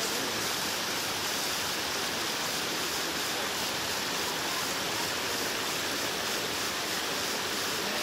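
Steady rushing of a shallow mountain stream cascading over boulders in a series of small waterfalls.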